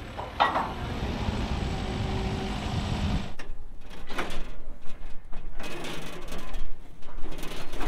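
A forklift's engine running, with a sharp clank about half a second in. The engine sound cuts off after about three seconds, and scattered knocks and clanks follow.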